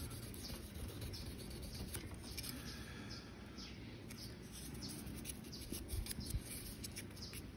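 Faint scratching of sandpaper rubbed lightly by hand along the steel spine of a Famex Bagpiper straight razor, in short irregular strokes, scrubbing off surface rust.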